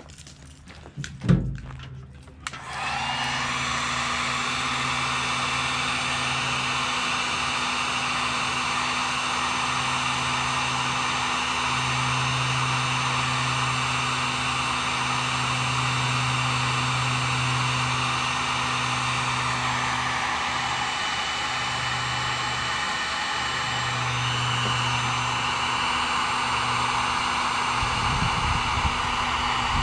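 Electric heat gun switched on and running steadily, its fan blowing hot air to shrink heat-shrink tubing over a copper lug crimped onto a welding lead. A single sharp knock about a second in, just before it starts.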